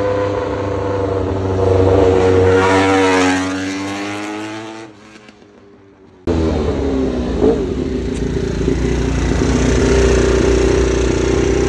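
Honda RC213V-S's V4 engine as the motorcycle rides up and goes by, its note climbing and then dropping as it passes and fading away. After a sudden cut, the engine idles steadily close by.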